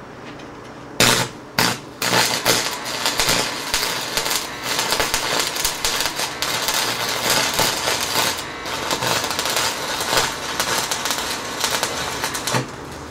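Electric arc welder welding a steel fence post: the arc strikes in two short bursts about a second in, then crackles steadily for about ten seconds and cuts off abruptly near the end.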